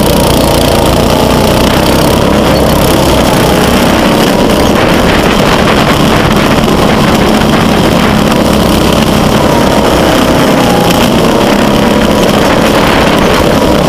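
Go-kart engine running steadily as the kart drives around the track, its pitch wavering slightly up and down.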